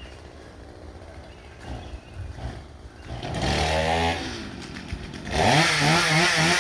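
Chainsaw engine revving in two bursts in the second half, its pitch rising and then holding. The second burst is the louder and longer one.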